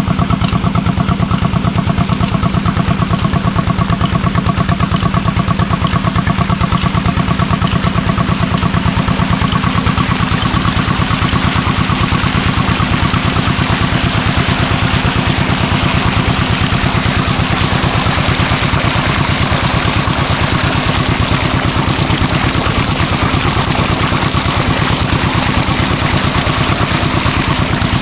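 An engine idling steadily with a fast, even pulse. About halfway through, a hiss in the upper range grows louder.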